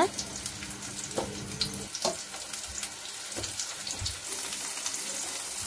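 Mushroom halves coated in flour and cornstarch deep-frying in a pan of hot oil: a steady sizzle with small crackles.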